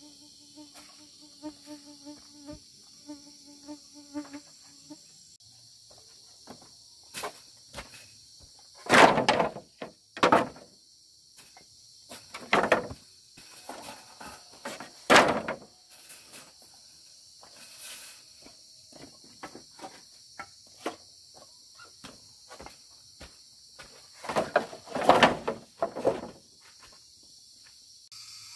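Steady high chorus of insects such as crickets, with a low buzzing tone over the first five seconds. Irregular knocks and clattering from hand work break in, loudest about nine, fifteen and twenty-five seconds in.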